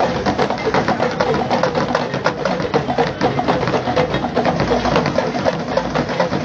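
Street procession percussion: drums and clacking hand percussion struck fast and continuously, loud and without a break.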